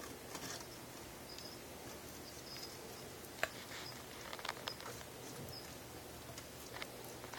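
Faint scattered clicks and taps as an Egernia skink bites and licks at a strip of Repashy gel food held out on feeding tongs, the sharpest click a little before the middle and a small flurry just after it. A low steady hum lies underneath.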